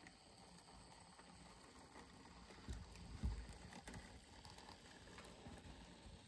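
Faint steady whirr of a model railway locomotive chassis running slowly with its body off, motor and wheels on the track, with a few light clicks. Two low thumps about three seconds in.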